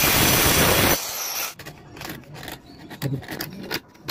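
Handheld electric circular saw cutting across a wooden plank, stopping abruptly about a second in. Then quieter, irregular short strokes of a hand chisel scraping out wood between the saw cuts.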